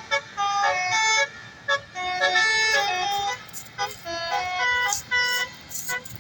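Bus 'basuri' (telolet) musical horn playing a tune: held horn notes stepping up and down in pitch, in phrases with short breaks between them.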